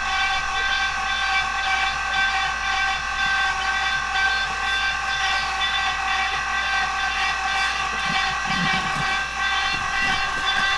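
Electric oil-change pump running steadily with a high whine, left on with the generator's sump capped off so it pulls air. Faint handling knocks from an oil pad near the end.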